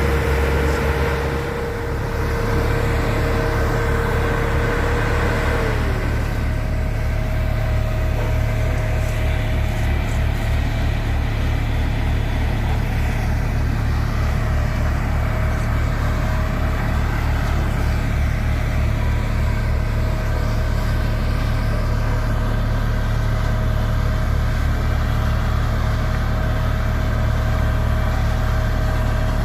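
Heavy diesel engine of a road-construction machine running steadily, with a low, fast, even beat. About six seconds in, a whine in the engine note drops a little in pitch, and the engine then runs on at a steady speed.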